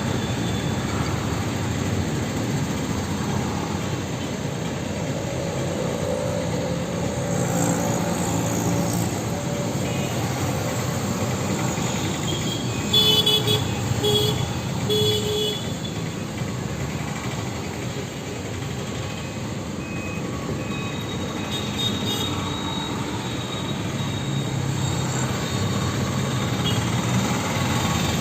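Steady road-traffic noise from passing engines and tyres. About halfway through, a vehicle horn gives three short honks in quick succession.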